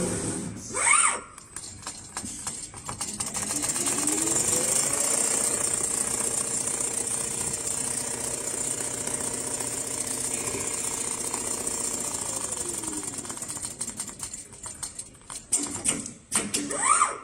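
Automatic CNC sewing machine sewing: its motor speeds up about three seconds in, runs at a steady pitch with a rapid stitching rattle for about ten seconds, then winds down and stops. Short rising whines about a second in and again near the end.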